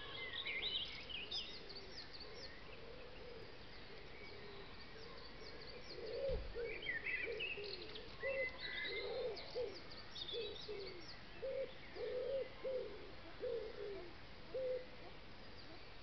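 Woodland birdsong: many small birds chirping and trilling in high, quick notes, with a pigeon cooing in a run of low, repeated notes from about six seconds in.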